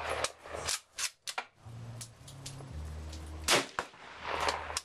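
Bolt-action rifle being cycled, a few sharp metallic clicks in the first second and a half, then one loud rifle shot about three and a half seconds in.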